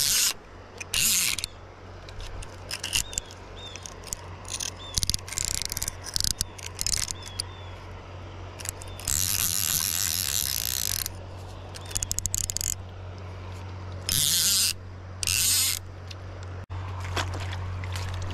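Fly reel's click-and-pawl ratchet buzzing in short bursts as line is wound in, with one longer run of about two seconds near the middle.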